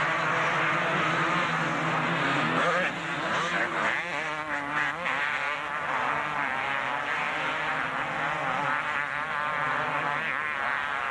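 Several two-stroke motocross bikes racing together, their engines revving up and down as a buzzing tangle of overlapping notes. The notes are steadier for the first few seconds and grow busier from about four seconds in.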